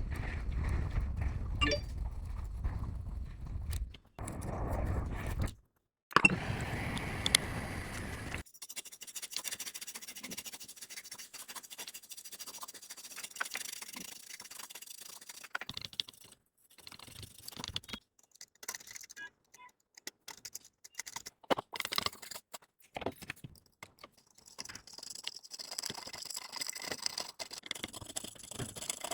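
Small metal tools clicking, tapping and scraping against a phone's parts during hands-on repair work. A low steady hum runs under the first part and stops abruptly about eight seconds in.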